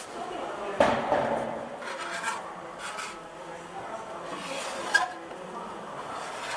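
Hand scraping and rasping over a car body panel during body-filler work, in several uneven strokes, with a short sharp click about five seconds in.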